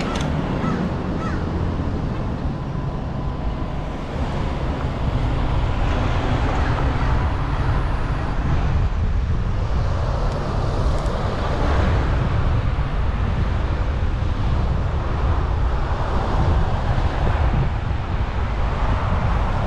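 Wind buffeting a GoPro's microphone while cycling: a steady low rumble that rises and falls, a little louder from about five seconds in.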